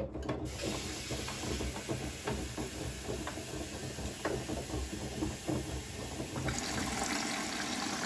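Bosch front-loading washing machine taking in water: a steady hiss of inflowing water with a low rumble. About six and a half seconds in it changes to a brighter rush as water streams into a compartment of the open detergent drawer.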